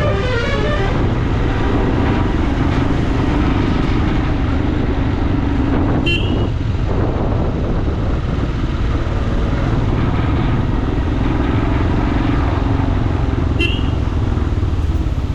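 Motorcycle riding: steady engine and wind rumble, with two short horn toots, one about six seconds in and one near the end.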